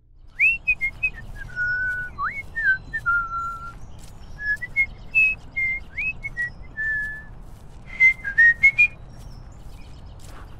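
A person whistling a jaunty tune, one note at a time, with quick upward slides into held notes; a run of quicker, louder notes comes near the end.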